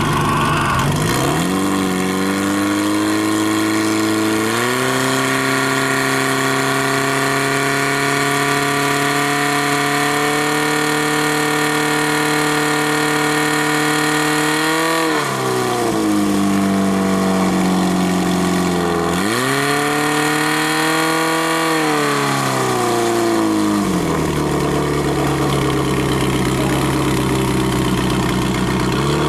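Portable fire pump's engine running at high revs while pumping water through the attack hoses. The revs climb in steps over the first few seconds, dip about halfway through and come back up, then drop to a lower, steady speed near the end.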